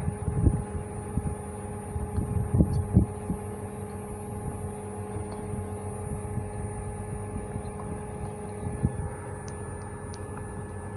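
Steady background hum with a few constant tones. Several soft low thumps come in the first three seconds and one more near nine seconds.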